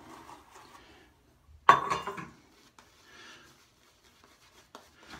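A sudden loud clink of a hard object knocked about two seconds in, ringing briefly. It is followed by faint scrubbing of a shaving brush working lather onto the face, with small clicks.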